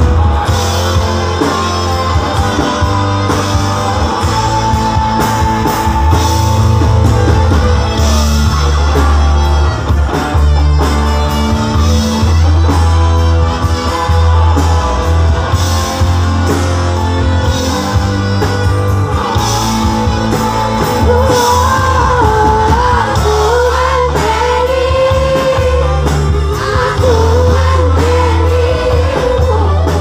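Live band playing loud amplified music through a stage PA: electric guitar and drum kit over heavy bass. A woman's singing voice comes in about two-thirds of the way through, after an instrumental stretch.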